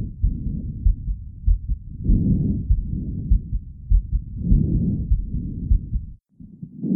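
Recorded chest sounds heard through a stethoscope, used as a lung-sound training example. Breath sounds swell and fade roughly every two and a half seconds, with regular low thumps about every half second underneath.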